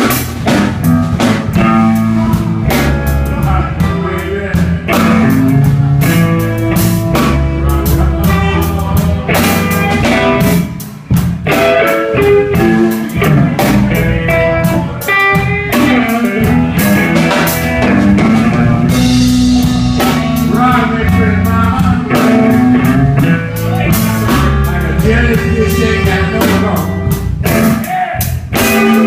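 Live blues band playing: guitar lines over bass and a drum kit.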